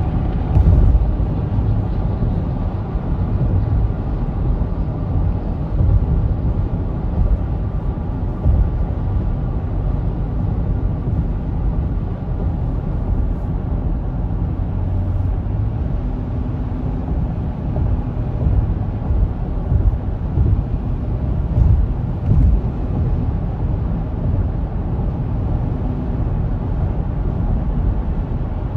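Steady road noise heard from inside a car cruising at highway speed: a low, even rumble of tyres and engine.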